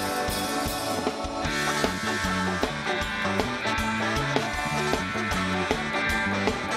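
Live ska band playing an instrumental passage, the drum kit keeping a steady beat under the band.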